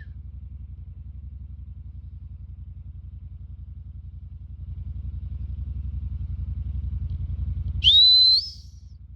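A low rumble with a fast, even pulse, then about eight seconds in a stockman's whistle command to a working stock dog: one rising note that levels off, about half a second long.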